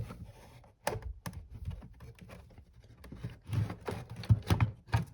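Scattered small clicks and taps from handling the opened radio and its parts, with a sharp click about a second in and a quick run of knocks near the end.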